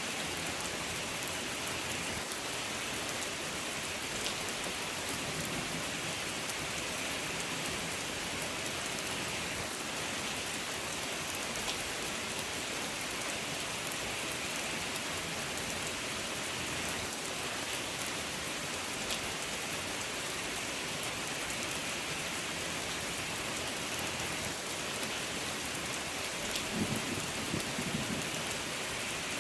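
Steady rain falling, a dense even hiss with scattered individual drops ticking through it. A brief low rumble comes in near the end.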